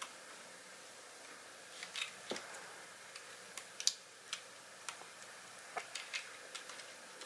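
Light plastic clicks and taps of LEGO pieces being handled, a dozen or so at irregular intervals, over a faint steady hiss.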